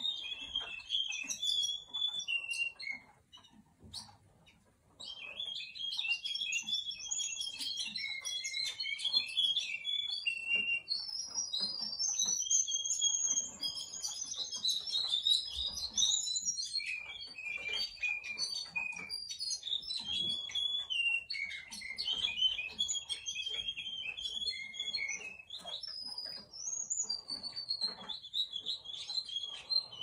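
Russian canary singing: long runs of rapid trills and warbling phrases, high in pitch. The song stops for about two seconds near the start, then runs on almost without a break.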